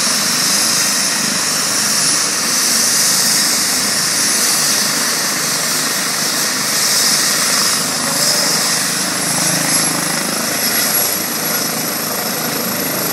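Eurocopter EC135 air-ambulance helicopter running on the ground, with its turbines giving a steady high whine over a loud, continuous rushing noise.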